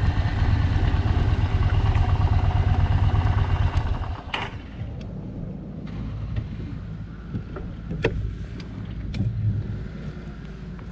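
Yamaha Bolt's V-twin engine running on the road, its exhaust pulses loud for the first four seconds, then easing to a quieter steady run with a few sharp clicks.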